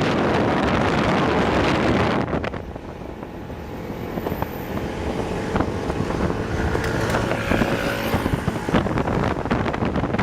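Wind buffeting the microphone on a moving motorcycle taxi. About two seconds in the wind drops away, leaving quieter traffic and engine sound with some steady tones, before the level climbs again.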